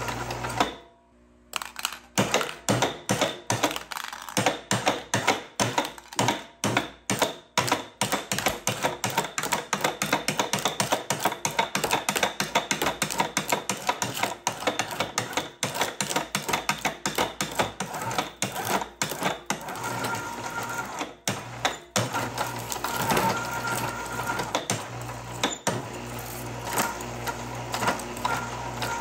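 Precious Plastic shredder's steel cutter blades chewing up aluminum cans: a rapid, uneven run of sharp cracks and crunches over a steady hum. It drops out briefly about a second in, and the crunches thin out near the end as the cans are reduced to small scraps.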